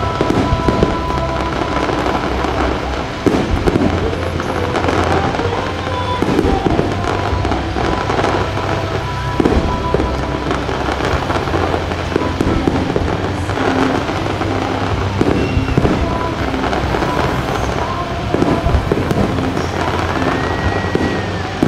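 Fireworks display going off without a break: dense crackling and popping of aerial shells with frequent louder bangs, picked up on a phone microphone.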